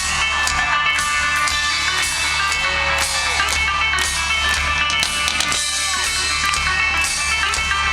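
Live rock band playing an instrumental passage: plucked and strummed guitars over a steady drum beat and bass.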